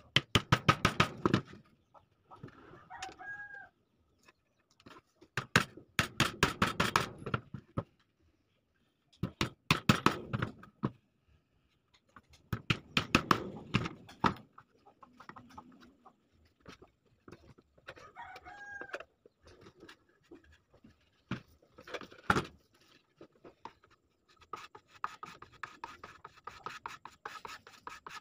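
Hammer driving small nails into a plywood shelf board in several quick runs of rapid light blows. A chicken calls briefly twice in the background, and near the end a cloth rubs steadily on the wood.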